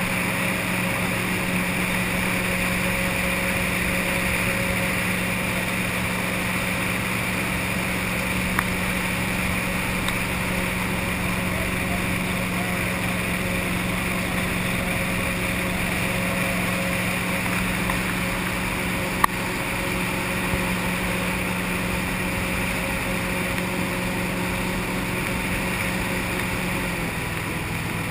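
Tunnel-hull jet boat's V8 engine running at a steady pace, with water rushing along the hull; the engine note drops slightly near the end. One sharp tick about two-thirds of the way through.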